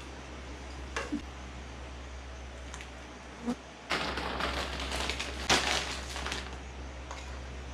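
A few light knocks, then about two and a half seconds of scraping and clattering with sharp clicks, from kitchen utensils and containers being handled.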